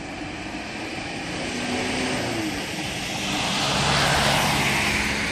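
A van drives past close by on a wet road: its engine and tyre hiss swell to a peak about four seconds in and then ease off.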